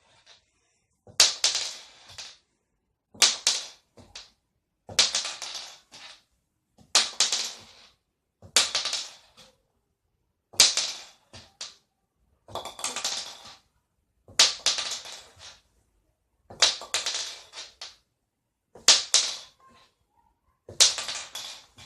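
A small .410 shotgun shell flipped again and again, each time landing on a hard surface with a sharp clack and a short clatter as it bounces and tips over. This repeats about ten times, roughly every two seconds.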